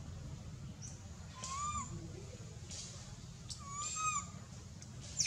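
Baby macaque giving two short, plaintive coo calls, each a rising-then-falling whistle-like tone about half a second long, with a brief sharp click near the end.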